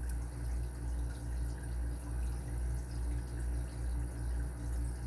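Faint ticks of a Lishi 2-in-1 pick setting pins in an Abus 83/50 padlock under tension, over a steady low hum that pulses a couple of times a second.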